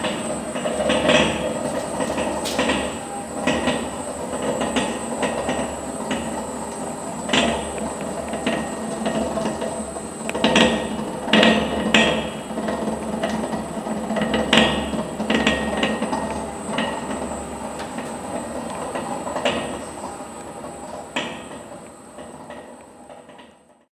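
Vertical borer machining the inside of a large bronze bell: a steady machine hum under irregular knocks and clatter from the cut, fading out near the end.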